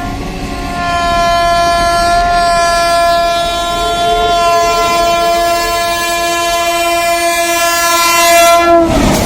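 Electric locomotive's horn sounding one long, continuous blast with several tones together, growing louder about a second in. Near the end the locomotive rushes past with a loud burst of rushing noise, and the horn's pitch drops as it goes by.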